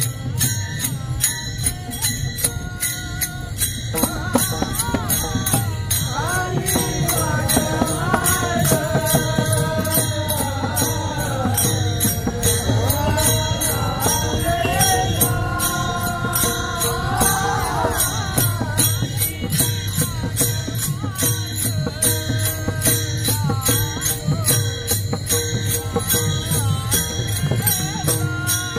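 Marathi devotional music: a fast, even jingle of hand cymbals over a drum, with a voice singing a winding melodic line from about four seconds in until about eighteen seconds.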